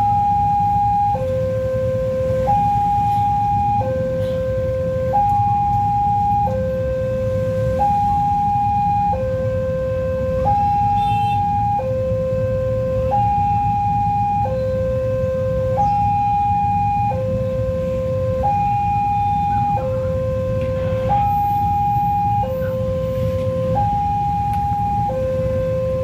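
Railway level-crossing warning alarm from a pole-mounted loudspeaker: a two-tone signal alternating evenly between a higher and a lower note, each held about a second and a quarter. It sounds while the crossing barriers are down for a train.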